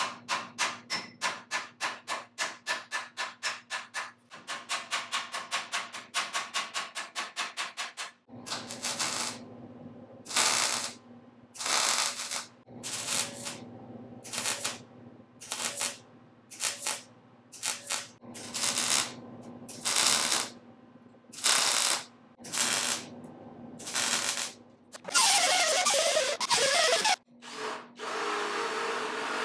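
A hand ratchet clicking rapidly, about five clicks a second. Then a MIG welder lays a string of short welds, about a dozen bursts each around a second long. Near the end a cordless drill runs.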